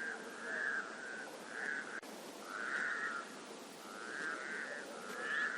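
Frogs calling in a chorus: a string of short trilled calls, each about half a second long, repeating roughly once a second.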